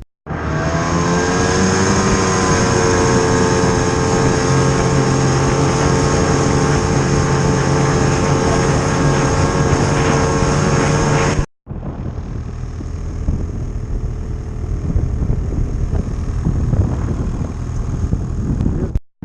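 Snowmobile engine running, its pitch rising briefly near the start and then holding steady. The sound cuts out abruptly a little past halfway and gives way to a rougher, noisier engine sound.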